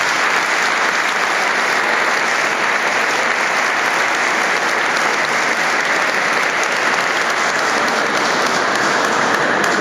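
Audience applauding steadily, a dense sustained clapping in a reverberant stone church hall, in response to the end of a lecture.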